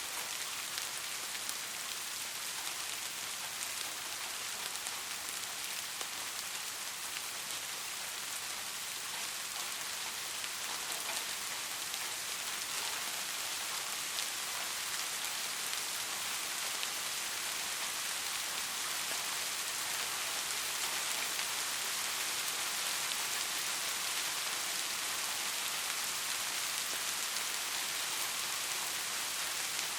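Steady rainfall: a dense hiss of rain on surfaces with fine patter of individual drops, growing slightly heavier in the second half.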